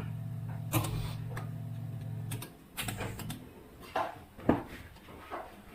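A steady low electrical buzz that cuts off about two and a half seconds in, over a series of sharp clicks and taps; the loudest tap comes about four and a half seconds in.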